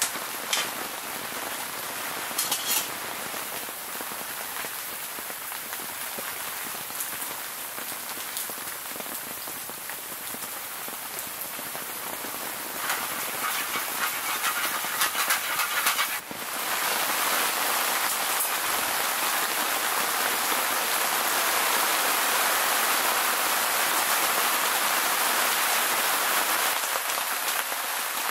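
Steady heavy rain falling on the tent, with a few light clicks of metal tongs against the pan near the start. The rain turns suddenly louder about sixteen seconds in.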